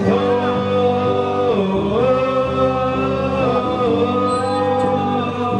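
Music with singing: a song with held, gently bending vocal notes over steady accompaniment.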